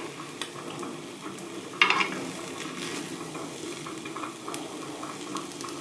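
Egg sizzling steadily in an oiled rectangular omelette pan, with light ticks of chopsticks against the pan as the thin omelette layer is rolled up. A brief, louder sizzling burst comes about two seconds in.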